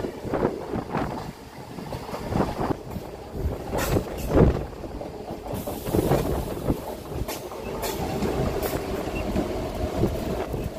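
Riding in a MEMU electric train, heard from an open doorway: wheels knocking irregularly over rail joints over a steady rumble and rush of air as the train runs in along a station platform. A steady whine joins in over the last few seconds.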